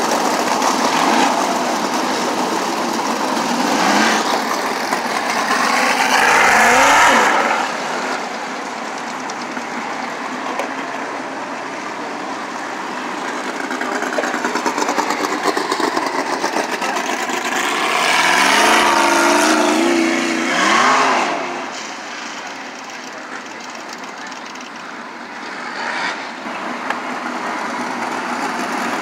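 Winged dirt-track sprint cars' V8 engines running as the pack circles the track. The sound rises and falls in pitch and gets loudest as cars pass close, about six seconds in and again around nineteen to twenty-one seconds in.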